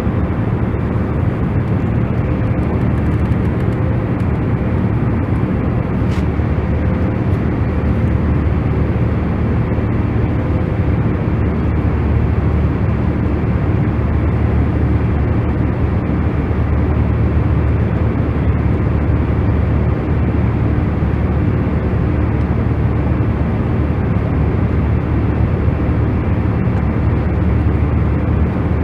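Steady, unchanging noise for sleep, deep and heavy in the bass with little treble, like a cabin or engine drone, with a faint steady hum running through it.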